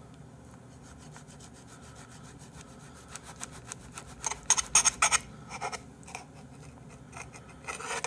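Table knife sawing through a raw salmon fillet and scraping on the plate, in a run of quick back-and-forth strokes, loudest in a cluster about four to five seconds in and again near the end.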